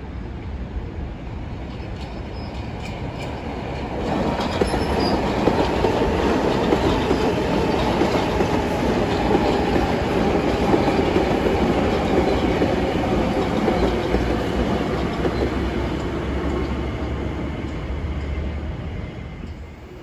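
Passenger train passing on the rails, its wheels running over the track. The sound builds sharply about four seconds in, stays loud for about ten seconds, then fades away near the end.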